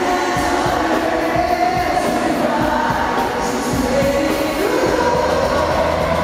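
Live pop-rock band playing loud, with sung vocals over guitars and a steady drum beat, recorded from within the audience.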